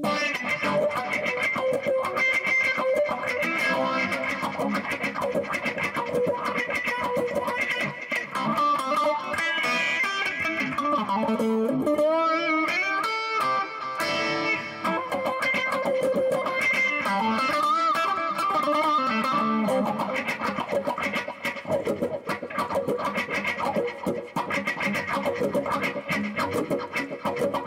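Electric guitar (Charvel San Dimas on its neck pickup) played clean through a Dunlop CBM95 Cry Baby Mini wah pedal and a Boss Katana amp, with the foot rocking the wah so the tone sweeps.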